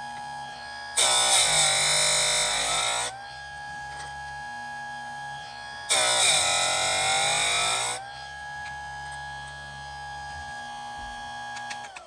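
Electric chainsaw sharpener's grinding wheel running with a steady whine. It is lowered onto the chain twice for about two seconds each: a loud grinding rasp as the stone dresses a cutter tooth, with the motor's pitch sagging under the load and recovering. Near the end the motor is switched off and the whine falls away as the wheel spins down.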